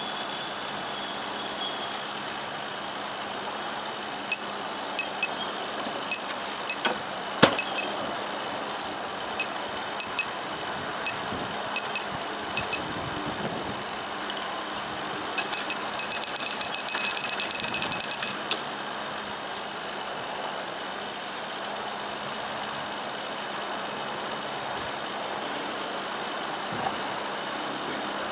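Metallic clicking of a canal lock paddle's ratchet and pawl as it is wound with a windlass: scattered single clicks at first, then a fast run of clicks for about three seconds. A steady engine hum continues underneath.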